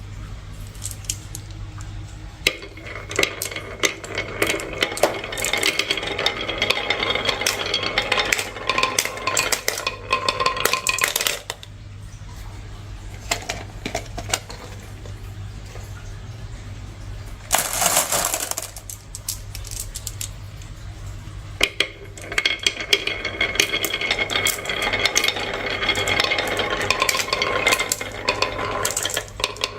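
Many marbles rolling and clattering down a marble run, in two long runs of dense clicking rattle with a brief rush in between. A low steady hum runs underneath.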